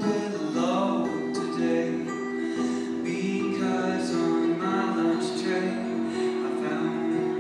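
Live band music: a singing voice over sustained instrumental chords.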